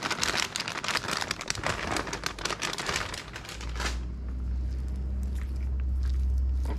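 Plastic packet of grated cheese crinkling as it is shaken out over the dough, for about four seconds. After that a low steady hum, with faint sounds of hands mixing the dough.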